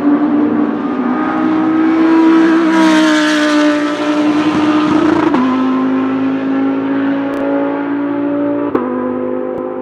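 A V10 GT3 race car engine running hard at high revs, with its note dropping in two sudden steps as it upshifts, about five seconds in and again near the end.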